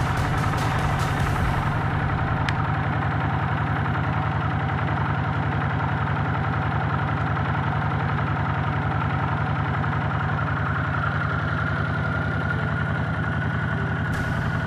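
Restored 1978 Honda CX500's water-cooled V-twin engine idling steadily, with an even, rapid beat.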